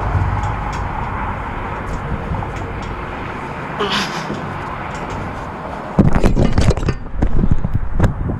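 Onboard-camera sound of an FPV racing quadcopter in flight: a steady rush of propeller and wind noise. About six seconds in it breaks into a rapid series of loud, irregular knocks, as the quad crashes and tumbles.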